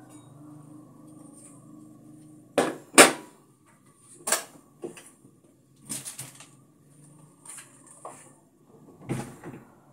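A low steady hum, then a run of sharp knocks and clacks, roughly eight of them, the loudest about three seconds in.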